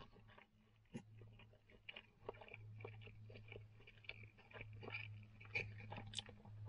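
A person chewing a mouthful of meat pie with pastry crust, close to the microphone: quiet, irregular small crunches and mouth clicks, with a low steady hum underneath.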